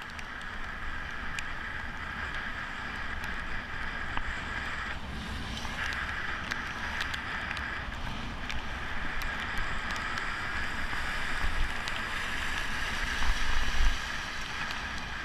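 A vehicle driving through floodwater and rain, with a steady rush of tyre spray and road noise and scattered small ticks. Near the end it swells into a brief louder rumble.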